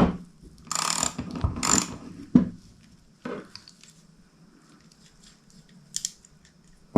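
Metal tool work on a Nukeproof Horizon Pro flat pedal as its axle is undone with an 8mm Allen key: a sharp knock, two short scraping bursts about a second in, another knock, then a few faint clicks.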